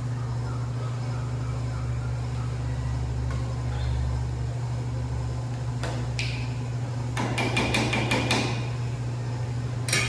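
Spoon stirring a pan of thick sauce on a gas range, knocking and scraping against the metal: a couple of clinks about six seconds in, a run of quick clicking knocks a second later, and a sharper clatter at the very end. A steady low hum runs underneath.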